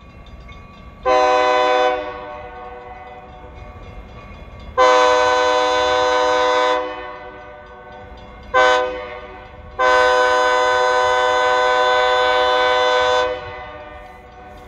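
Diesel locomotive air horn on an EMD SD40 sounding four chord blasts as the train approaches a grade crossing: a fairly short first blast, a long one, a quick short one, and a final blast held longest, the long-long-short-long crossing signal.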